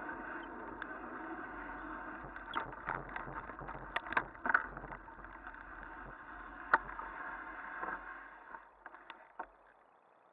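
Bicycle rolling along a paved lane, a steady tyre and riding noise with sharp rattles and knocks from the bike over bumps. About eight seconds in it dies away as the bike slows to a stop, leaving a few last clicks.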